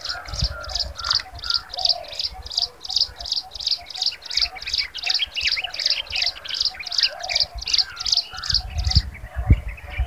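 Jungle prinia calling: a steady series of short, high notes repeated about three times a second, stopping about a second before the end.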